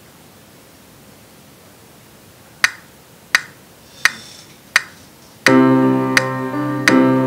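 SmartMusic practice playback: a metronome count-in of four sharp clicks, about 0.7 s apart at tempo 85, then a keyboard-like accompaniment of held chords comes in about five and a half seconds in, the metronome still clicking on each beat.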